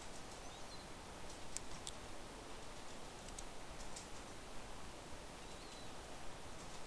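Faint scattered clicks of a stylus tapping on a tablet as handwriting is written, over a steady low hiss, with a couple of faint high chirps.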